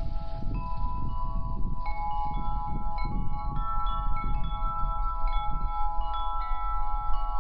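Metal tube wind chime ringing: its tubes are struck at irregular moments, so several clear tones overlap and ring on over a low, uneven rumble.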